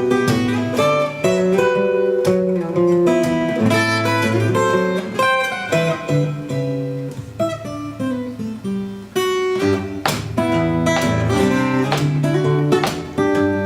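Acoustic guitar music: a melody of plucked notes over bass notes, with strummed chords here and there.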